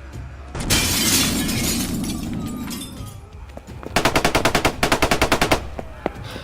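Foley sound effects: a grenade blast, a loud rush of noise that starts abruptly and dies away over about two seconds, then about three seconds later a quick burst of machine-gun fire, roughly ten shots a second for about a second and a half.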